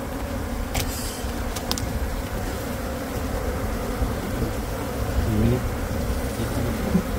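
A large honeybee colony, exposed in a wall cavity, buzzing steadily: the massed hum of many bees. A low rumble sits underneath, and there are a couple of brief clicks about a second in.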